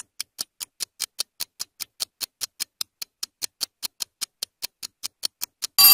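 Quiz countdown timer ticking steadily at about five ticks a second, then a short, louder electronic bell ring near the end that marks time up for the question.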